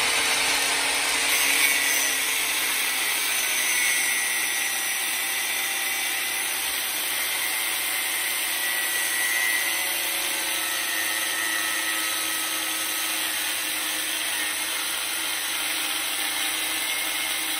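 Power tool running steadily under load, with a faint motor whine that drifts slightly in pitch, working on the metal centre hub of a tractor steering wheel to cut it out.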